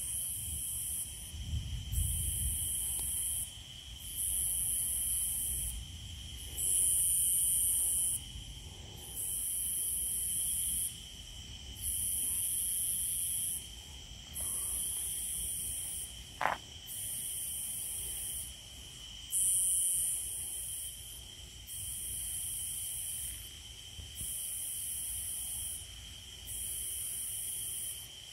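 Night insect chorus: a high, rasping buzz that comes in pulses of about a second and a half and repeats every two seconds or so, over a steady high-pitched trill. A faint low rumble near the start and a single sharp click about halfway through.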